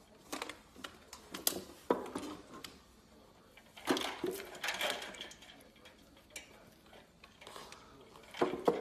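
Stainless steel dog bowls clanking and rattling in a raised wooden feeder as a puppy noses in one and climbs into the water bowl, with water sloshing. Irregular metallic knocks, with a busier burst of clatter about four seconds in and again near the end.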